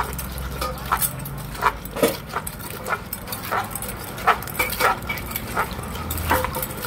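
Wooden pestle pounding and mixing som tam dressing in a large mortar: a hollow knock about twice a second, unevenly spaced, working the chilli, sugar, fish sauce and lime juice together.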